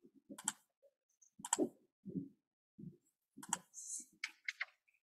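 Computer keyboard and mouse clicks: a dozen or so short, irregular taps with gaps of silence between them.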